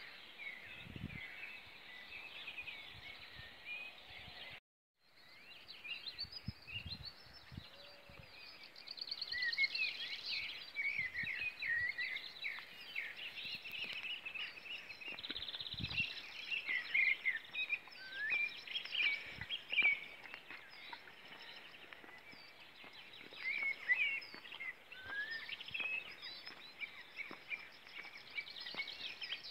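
Many songbirds singing at once, a dense overlapping mix of high chirps, trills and whistles, with a few soft low thumps. The sound cuts out completely for a moment about five seconds in.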